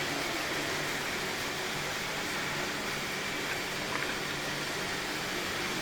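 Roborock S7 robot vacuum running, a steady even hiss of its suction fan.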